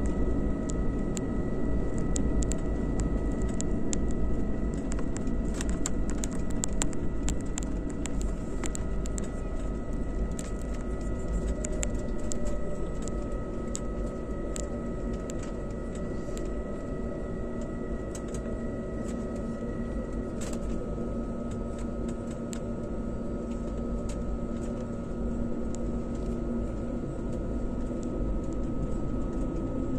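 Cabin noise of an Airbus A320neo taxiing onto the runway and lining up, its engines at low power: a steady rumble and hum with a thin high whine, broken by frequent small clicks and knocks in the first half. One of the high tones stops about two-thirds of the way through.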